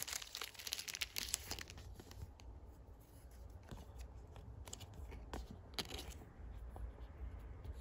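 Thin clear plastic card sleeve crinkling as it is handled and a trading card is slid into it. Dense fine crackling in the first second and a half, then scattered light ticks.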